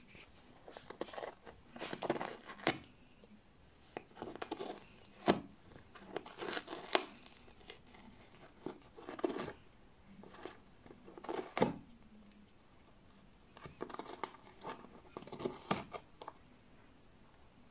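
Crinkling and tearing noises, as of paper or packaging being torn or crumpled, coming in irregular bouts with short pauses between them.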